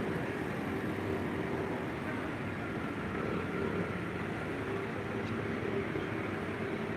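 Steady background rumble of road traffic, engines humming with no pauses or sudden events.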